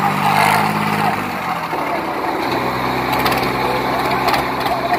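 Sonalika tractor's diesel engine running hard in a tractor tug-of-war. Its note drops away about a second and a half in and picks up again at a different pitch a second later.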